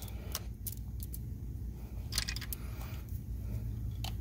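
Light metallic clicks and clinks of a steel engine timing chain being handled and worked over a cam sprocket, a few scattered clicks with a small cluster about two seconds in, over a steady low hum.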